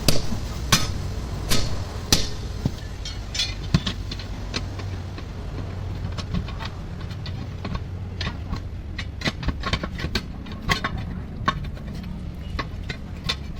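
Irregular sharp metal knocks and clicks from tools at work on a truck tyre, sparse at first and coming in quicker runs later, over a steady low engine-like hum.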